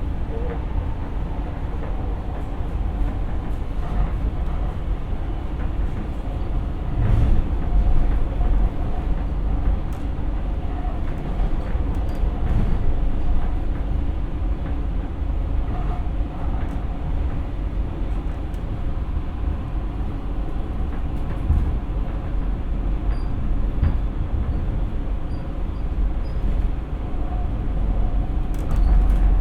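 Siemens P2000 light rail car running along the track, heard from inside: a steady low rumble of wheels and running gear with occasional faint clicks.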